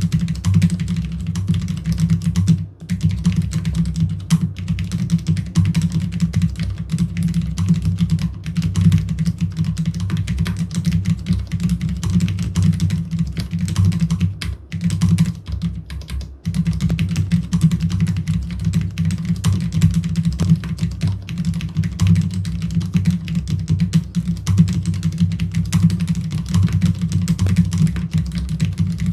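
Fast, continuous typing on a Cherry MX Board 10.0 LP keyboard with low-profile Cherry MX red linear switches: a dense stream of keystroke clacks. It pauses briefly about 3 s in and twice around 15 to 16 s in.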